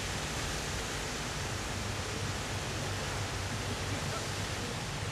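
Steady rush of running water from a garden water feature.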